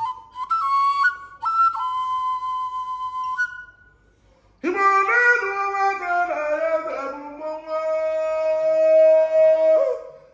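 A high, clear flute melody that breaks off about three and a half seconds in. After a pause of about a second, singing comes in with sliding notes and settles on a long held note near the end.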